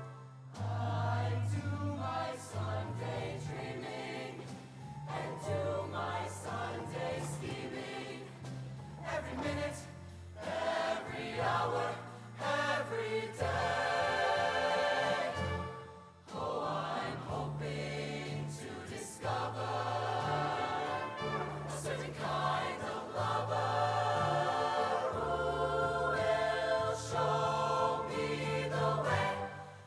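Show choir singing in harmony over a live band, with a stepping bass line under the voices; the music drops out briefly twice, near ten seconds and near sixteen seconds in.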